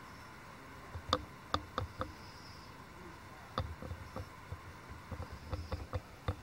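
Steady hiss with sharp, irregular clicks and pops: a cluster about a second in, more from about three and a half seconds on.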